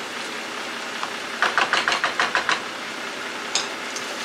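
Spinach and pepper paste sizzling in a hot pan, with a quick run of about ten taps of a wooden spatula against the pan a little over a second in, and one more knock near the end.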